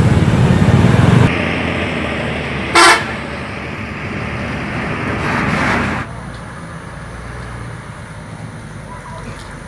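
Coach buses moving through street traffic with a running, noisy rumble, and one short, loud horn toot about three seconds in.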